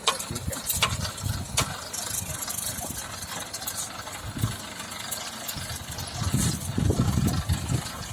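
Homemade sand-sieving machine driven by an electric motor, running with a steady mechanical rattle and scattered sharp clicks.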